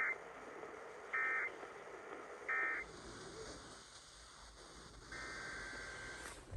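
EAS end-of-message (EOM) data tones: three short, identical screeching bursts of AFSK digital data about a second apart, over radio-reception hiss, marking the end of an Emergency Alert System test broadcast.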